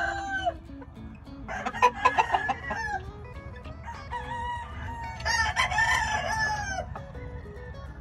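Rooster crowing: a choppy call about two seconds in, then a long crow from about five to seven seconds in that holds its pitch and drops at the end.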